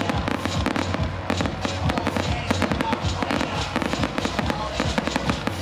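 Fireworks display in a dense barrage: aerial shells bursting and crackling several times a second without a break.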